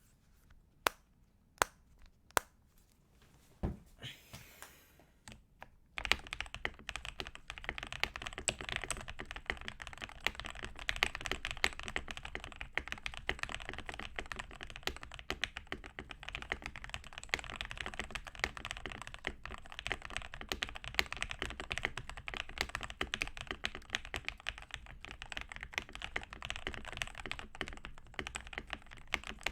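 Keychron K6 mechanical keyboard with lubed Banana Split linear switches (TTC Tigers on the modifiers), a foam-filled case and a taped PCB, being typed on. A few single keystrokes come first, then fast continuous typing from about six seconds in.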